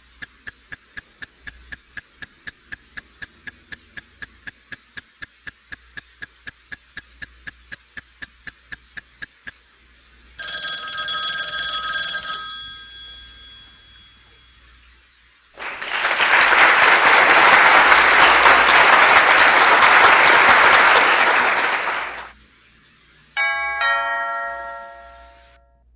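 A string of edited-in sound effects. First a bell ringing rapidly, about four strikes a second, for roughly ten seconds. Then a chime that rings out and fades, about six seconds of loud hiss-like noise, and near the end a short multi-tone chime.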